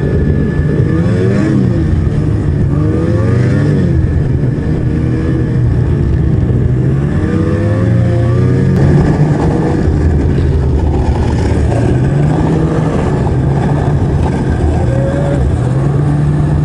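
Ski-Doo E-TEC two-stroke snowmobile engine running under way, its pitch rising and falling several times as the throttle is opened and eased.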